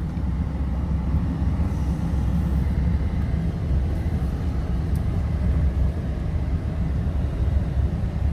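Toyota Tacoma pickup driving slowly, a steady low engine and road rumble.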